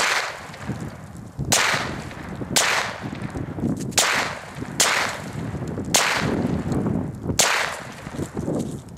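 Seven semi-automatic shots from a 9mm Sterling Mk4 carbine at an uneven pace, each a sharp snap with a short echo after it, heard from downrange near the target. The rounds are hot handloads of 8.5 grains of Accurate No. 7 behind 115-grain bullets.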